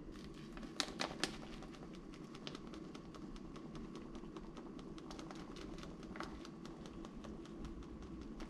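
Plastic wrapping on a block of Parmesan crinkling and crackling in gloved hands: a dense, irregular run of small clicks, with three sharper clicks about a second in.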